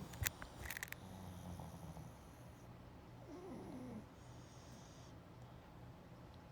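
Pug snoring in its sleep: a low snore, then a short falling whistle-like squeak in the middle, then the low snore again. A few sharp clicks in the first second.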